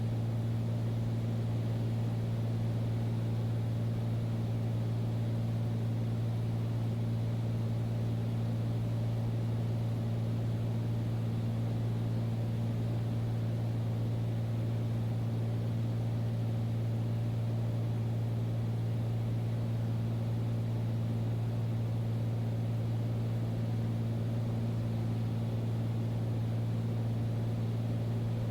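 Single-engine piston airplane (Beechcraft Bonanza) engine and propeller droning steadily in the cockpit, a constant low hum with no change in pitch or power.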